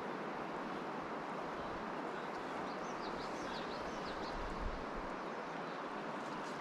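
Steady rush of river water, with a few short bird chirps about three to four seconds in.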